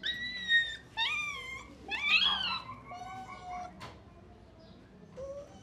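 Small puppy whining and crying in a series of high-pitched cries, the loudest about two seconds in, then fading to softer, lower whimpers, as a vet injects anaesthetic through a catheter in her foreleg.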